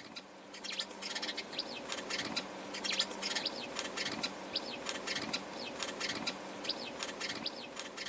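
Sparrows chirping over and over, short falling chirps, with scattered sharp clicks and a steady low hum underneath.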